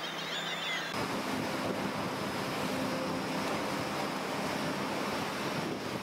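Seabird calls for about the first second, then a sudden switch to a steady rush of wind and surf with a faint, even hum underneath.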